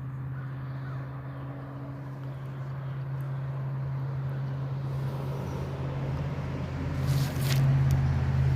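A steady low engine hum that slowly grows louder, swelling near the end with a burst of rushing noise about seven seconds in.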